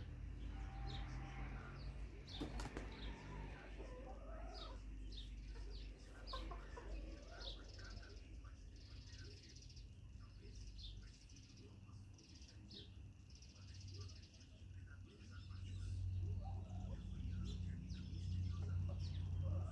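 Chickens clucking and moving about, with short high chirps scattered throughout over a low steady hum that grows louder near the end.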